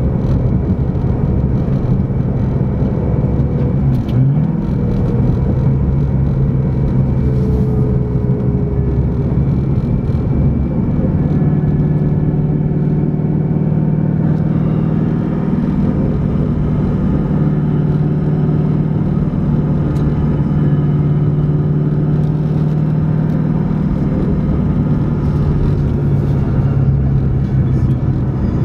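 Cammed, supercharged V8 of a straight-piped Shelby GT500 droning steadily while cruising, heard from inside the cabin. A brief rise in pitch comes about four seconds in.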